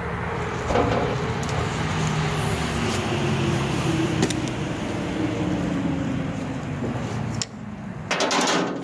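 A motor running steadily with a low hum, cutting off sharply near the end, followed by a short noisy burst.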